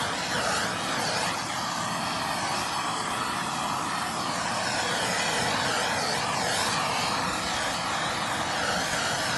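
Handheld gas blowtorch burning steadily close by, its flame played over wooden hull planking to dry the caulked seams before priming.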